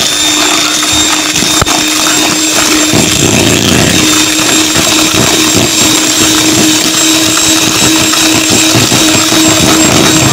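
Electric mixer running steadily with a constant motor whine, its beaters rattling through a butter, sugar and sour cream cake batter.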